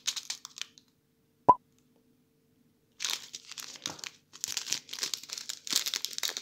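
Plastic zip-lock bag crinkling as it is handled, in two stretches with a pause between. A single sharp click about one and a half seconds in is the loudest sound.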